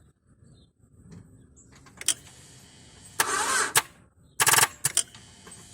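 Car starter motor cranking in two brief bursts, about three and a half and four and a half seconds in, with sharp clicks around them. The engine does not catch: the Everstart jump starter fails to start the car.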